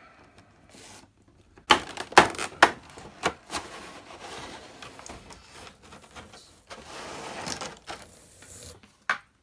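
A figure's cardboard box and its taped packaging being opened by hand: a quick run of sharp snaps and cracks, then a stretch of rough scraping and rustling, and one more sharp snap near the end.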